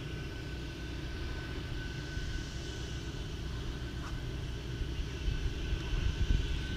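A steady low engine drone from some distance, with a faint steady high whine over it, growing slightly louder near the end.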